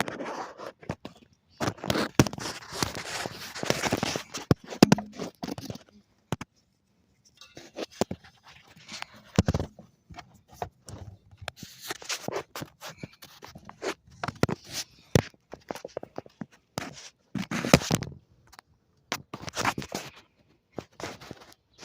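Intermittent scraping, clicking and knocking of hand tools and metal parts being handled while power steering components are worked off a car, in irregular bursts with short quiet gaps.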